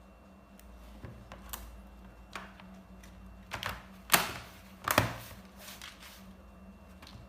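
Scattered plastic clicks and knocks of a laptop's battery and back cover being handled and fitted, about eight in all, the loudest two about four and five seconds in.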